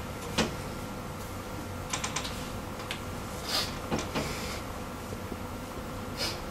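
Scattered light clicks and knocks with a brief swish of cloth: a canvas straitjacket being pulled off and its long straps and buckles handled.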